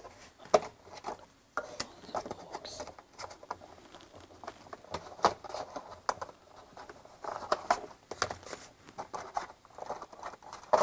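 Hands handling the parts and packaging of an unboxed smart doorbell kit: a run of light taps, clicks and rustles.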